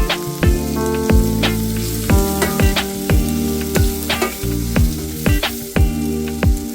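Background music with a steady beat of about two drum kicks a second, over the sizzle of food frying in a pan.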